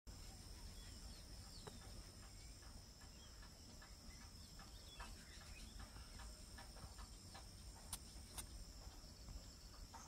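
Faint natural ambience: scattered short bird chirps over a steady high-pitched insect trill, with two sharp clicks near the end.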